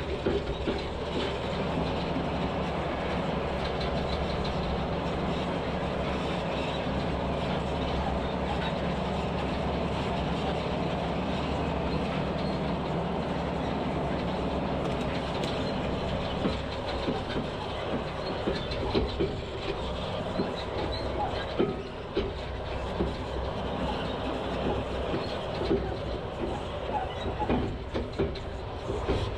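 Log truck on the move: a steady diesel engine drone with rattling and clanking, the knocks growing more frequent about halfway through.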